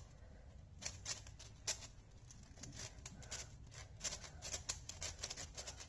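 Plastic 6x6 speed cube being turned in quick layer moves during a parity algorithm: a faint, irregular run of clicks and clacks that grows denser about four seconds in.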